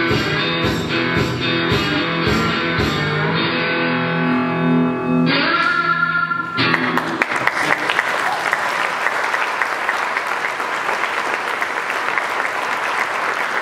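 Three-string tin can slide guitar playing a tune over a steady beat, with notes gliding under the slide, ending on a held chord about six seconds in. An audience then applauds until the end.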